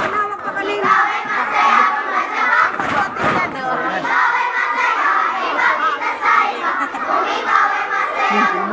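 A crowd of children shouting and yelling together, many voices at once in a steady loud din.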